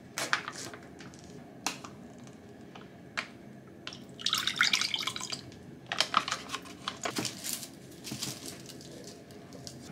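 Scattered light taps and clicks of small objects being handled, with a denser patch of rapid clattering about four seconds in that lasts about a second, and another run of clicks a little later.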